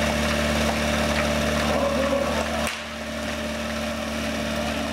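Small engine of a portable fire-fighting pump idling steadily. About two and a half seconds in there is a brief sharp sound, and the low engine drone drops suddenly.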